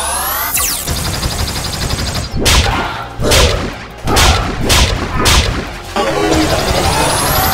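Synthesized sci-fi energy-weapon sound effects. A rising charge-up sweep is followed by a run of loud, noisy blasts, and another rising sweep builds near the end.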